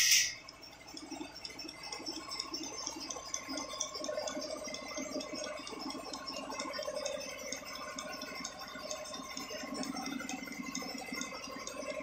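Bucket milking machine running with its teat cups on a cow's udder: a steady rhythmic rattling of the vacuum pulsation, opening with a short hiss.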